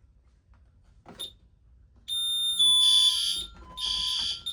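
Honeywell alarm keypad sounding a fire panic alarm: after a key-press click, a steady beep starts about two seconds in and turns into a loud pulsing alarm tone, about one pulse a second.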